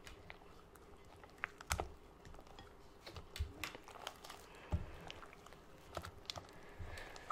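Cloud slime (pink slime mixed with instant snow) being squeezed and kneaded by hand in a glass bowl: a quiet, irregular crackling of many small clicks and squishes, with a few sharper pops, the loudest near five seconds in.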